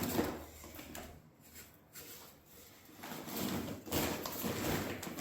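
A scoop rustling and scraping through dry chick feed in uneven bursts: a short one at the start and a longer run from about three seconds in.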